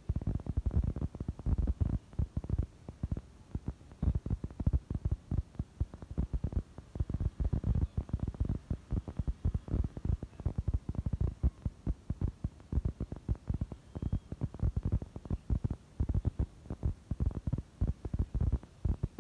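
Wind buffeting the phone's microphone: a low, choppy rumble of irregular gusts that covers the sound of the track.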